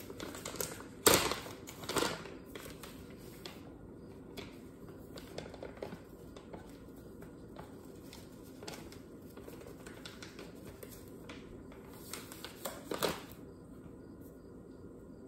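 Crinkling and rustling of a plastic bag of gluten-free flour being pulled open, with sharper crackles about a second and two seconds in, then soft rustling and light ticks as flour is poured into a glass measuring cup. A few louder knocks and crinkles near the end as the bag is handled and set down.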